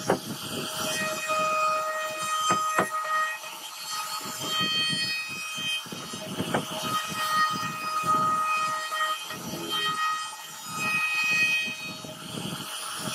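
CNC router spindle running at speed, a steady whine with several overtones, while the carving bit cuts into a wooden panel; the rougher cutting noise rises and falls as the bit moves, with a few sharp clicks.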